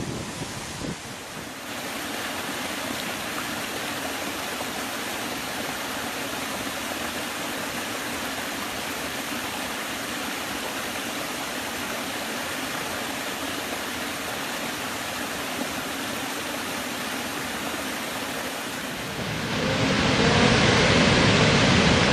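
Running water rushing steadily. About nineteen seconds in it gives way to a louder, fuller rush of water.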